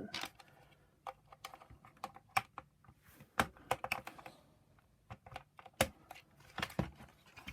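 Irregular light clicks and taps of hard plastic parts being handled while a Shark vacuum power nozzle is taken apart.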